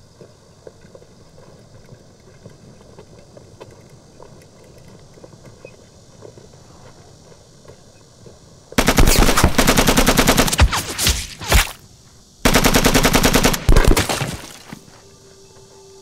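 Rapid automatic gunfire in two long bursts, the first about three seconds and the second about two, with a short break between them. The bursts come after a long, quiet stretch.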